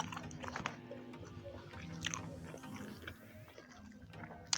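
A person biting and chewing food close to the microphone, with wet mouth clicks and light crunching, over soft background music.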